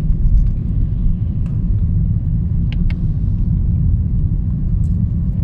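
Steady low rumble, with two faint clicks close together a little under three seconds in.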